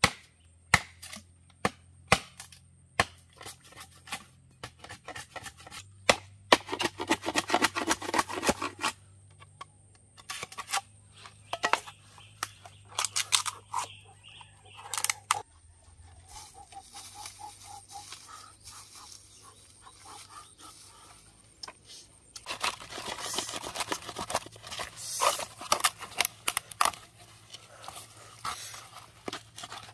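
Machete blade striking a bamboo pole: sharp single chops about a second apart at first, then quick runs of blows. Near the end it gives way to a rougher, more continuous scraping as the bamboo is shaved, with chops still mixed in.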